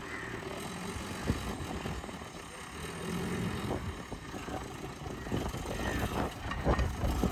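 Backhoe loader's diesel engine running steadily, with a few faint knocks.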